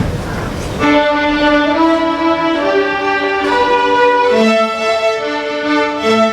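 A student string orchestra, led by violins, starts a lively fiddle tune about a second in, after a moment of room noise. It plays held, bowed notes in a stepwise melody, and lower strings come in near the end.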